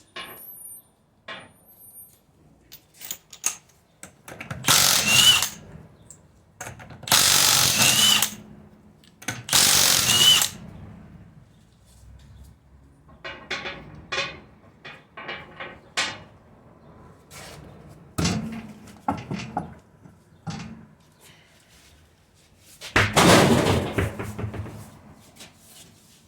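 Power tool run in three bursts of about a second each, then a string of sharp metallic clicks and knocks, and a longer burst near the end.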